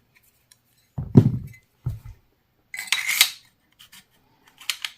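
Handling clatter of a handguard being slid onto a carbine's barrel and rail adapter. Two low knocks come about a second in, then a scrape with metallic clinks near three seconds, and a few light ticks near the end.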